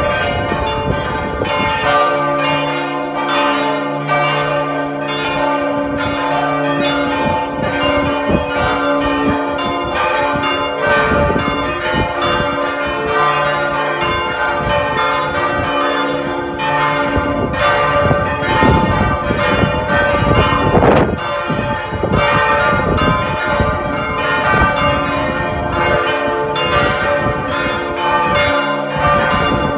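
The old bells of Split Cathedral's bell tower, cast partly by De Poli and partly by Cukrov, ringing together in a full peal. Many strokes overlap irregularly over a long, steady ringing hum.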